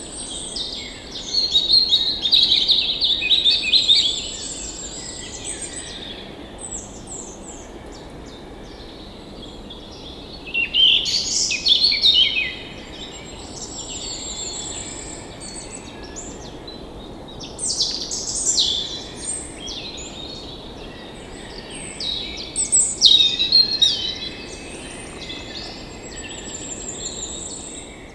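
Songbirds singing: bursts of chirping, trilling song come every several seconds, with thinner high trills between them, over a steady background hiss.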